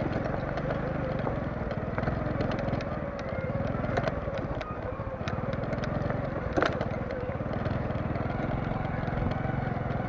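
Motorcycle engine running at low speed as the bike rolls slowly over rough rubble ground, with scattered clicks and knocks and one sharper knock about six and a half seconds in.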